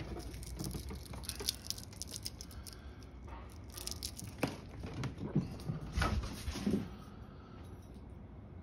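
A Smarties candy wrapper crinkles crisply in a hand. Then, from about four seconds in, a cat's paws thud and skitter across a hardwood floor, with several short, sharp knocks as it chases the tossed wrapper.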